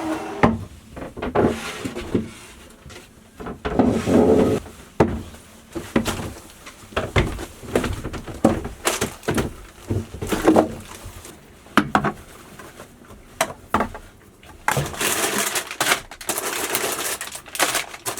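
Provisions being handled and stowed: irregular knocks, clinks and rustling of packages and containers, with a longer stretch of rustling near the end.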